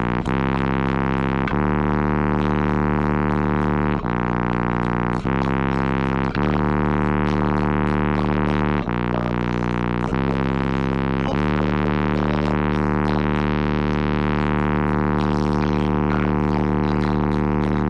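Bass-heavy music played very loudly through a car audio system of sixteen Resilient Sounds Gold 12-inch subwoofers. It is long droning bass notes, each held one to five seconds before stepping to a new pitch.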